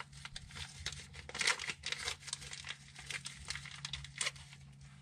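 Irregular crinkling and rustling with scattered light clicks as parts and packaging are handled, over a steady low hum.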